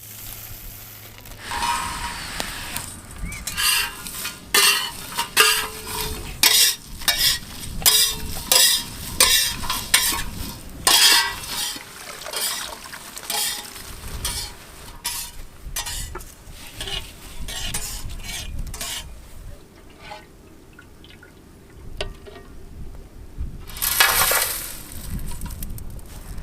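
Whole spices being stirred in a hot pan with a ladle: repeated scraping strokes about twice a second, with a light sizzle. The strokes are busiest in the first half, thin out, and a louder rush of noise comes near the end.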